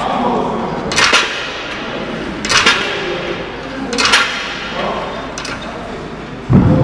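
Weight plates on a cable pulley machine clanking with each rep of a wrist-and-hand cable pull, four clanks about a second and a half apart with lighter knocks after. A heavy thump near the end.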